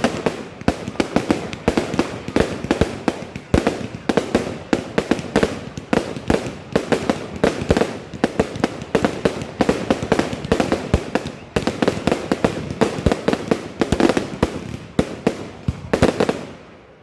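Fireworks going off in a dense, continuous barrage of sharp bangs and crackles, several a second, which dies away near the end.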